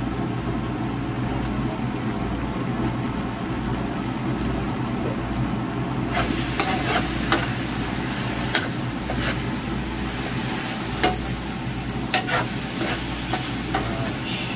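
Sweet-spicy gangjeong sauce sizzling in a frying pan as battered fried smelt are stirred and tossed through it, a metal spoon clicking and scraping against the pan. The sizzle grows louder about six seconds in, over a steady low hum.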